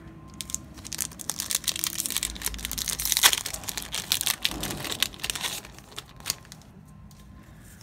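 A trading-card booster pack being torn open and its wrapper crinkled: a dense run of crackling and tearing that lasts about five seconds, loudest about three seconds in.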